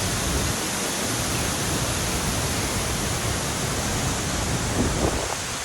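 Waterfall rushing: a steady, even wash of falling water, with a few faint brief sounds about five seconds in.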